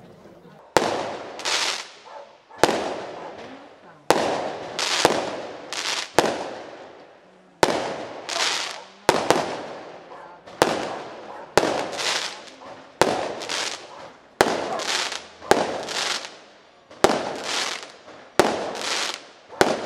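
Aerial fireworks going off in quick succession: sharp bangs about one to two seconds apart, each followed by a short, higher-pitched burst as the stars break.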